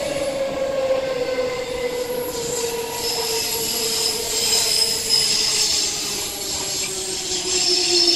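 Queensland Rail electric multiple-unit train running past on a curve: a steady electric motor whine slowly falling in pitch over the rumble of the cars, with high-pitched wheel squeal from the curve growing from about three seconds in.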